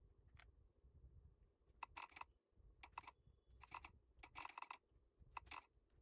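Keys of a Redragon K596 mechanical keyboard being typed on in short, quick bursts of clicks with gaps between them, about six bursts.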